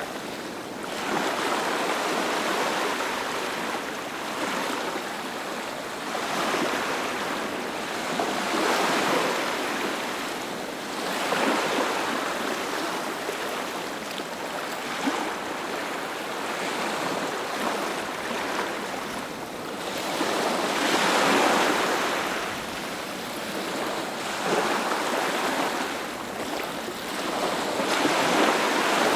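Ocean surf: waves breaking and washing up, the rushing noise swelling and easing every few seconds.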